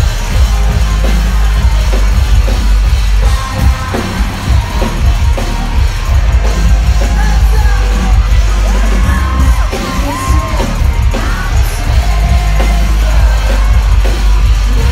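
Live rock band playing loud through a club PA, with heavy bass and drums, and yelled vocals over it.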